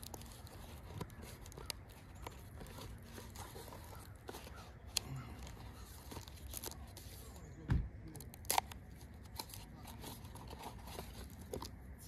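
Paper wrapping crinkling and tearing as an axe head is unwrapped by hand, with many small clicks and rustles and two louder knocks about two-thirds of the way through.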